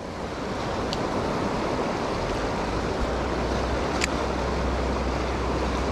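Steady rushing of a fast-flowing river, with a low wind rumble on the microphone joining about two seconds in. Two brief faint ticks are heard.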